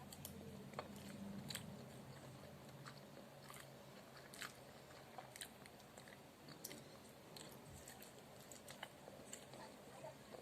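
Faint close-up chewing and biting of a crab stick: irregular soft wet mouth clicks, a couple a second.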